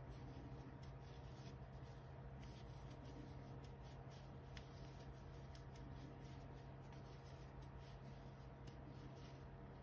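Faint rustle and light ticks of a metal crochet hook pulling cotton yarn through stitches, over a steady low hum.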